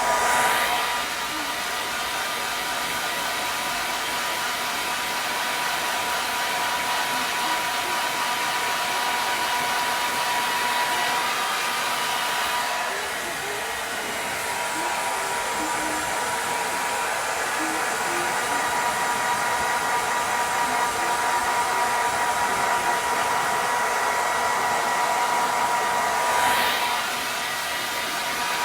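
Handheld hair dryer running steadily as it dries hair: a loud blowing rush with a steady whine in it. The sound shifts a few times as the dryer is moved about, dipping briefly about halfway through.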